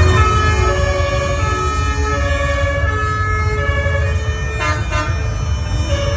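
Emergency-vehicle two-tone siren sounding, switching back and forth between a high and a low note about once a second, over a steady low engine rumble.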